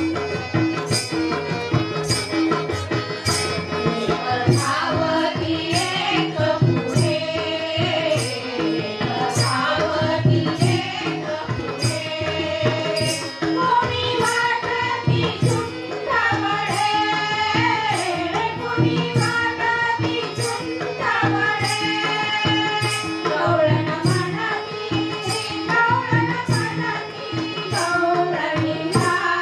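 Women singing a gavlan, a Marathi devotional folk song. The melody comes in after a few seconds of drumming and is accompanied by a hand drum and a small metal percussion hit that keeps a steady beat.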